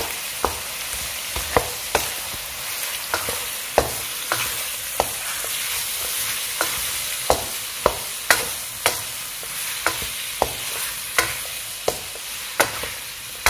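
Boiled minced meat and sliced onions sizzling in oil in a pan as they are stirred with a wooden spoon. A steady sizzle runs under frequent sharp clicks of the spoon against the pan.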